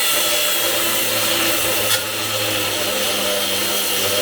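Power drill running steadily under load, with a thin high whine over the motor noise and one brief click about halfway.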